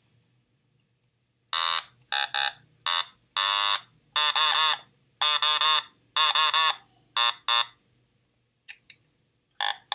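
Otamatone, an electronic toy synthesizer, playing a run of short buzzy notes starting about a second and a half in. Each note bends in a wah-like arch as the rubber mouth is squeezed open and shut. After a pause, a few quicker, shorter notes come near the end.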